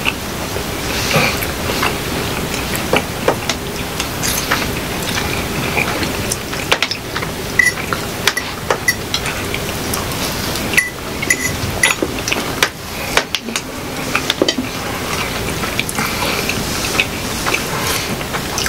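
Forks clinking and scraping against plates during a pasta meal, with many small irregular clicks and a few brief metallic pings.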